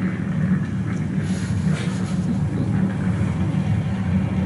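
Sound design of a molecular animation played over a lecture hall's loudspeakers: a steady low drone with a couple of faint airy swishes a second or two in.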